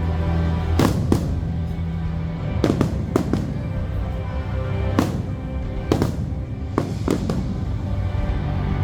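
Aerial fireworks bursting, about ten sharp reports at irregular intervals, some in quick pairs, over accompanying music with sustained low notes.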